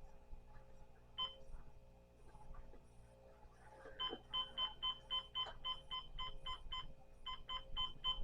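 Digital clock beeping with each button press while its time is being set: one short high beep about a second in, then a fast run of identical beeps, about five a second, from about four seconds in, with a short break near seven seconds.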